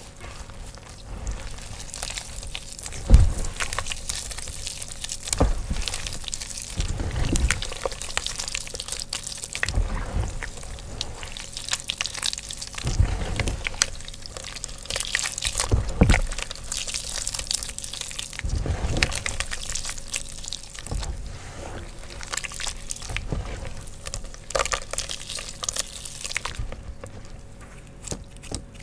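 Wet gym chalk paste squeezed and kneaded in bare hands: wet squishing with a gritty crackle, a heavier squeeze every two or three seconds. It grows quieter near the end as the hands empty.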